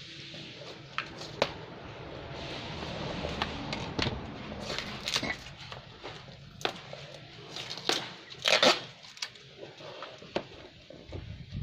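A parcel being unwrapped by hand: rustling and crackling of the wrapping with scattered clicks and knocks, and one louder tearing burst about eight and a half seconds in.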